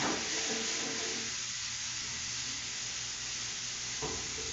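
Steak frying in a pan on a gas stove: a steady sizzle, with a light knock about four seconds in.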